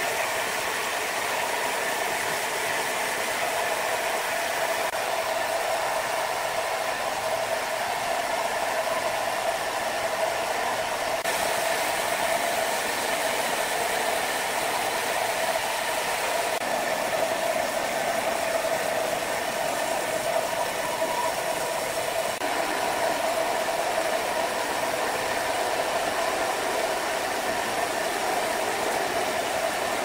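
Horizontal band sawmill blade cutting through a large log: a steady hum over an even rush of sawing noise.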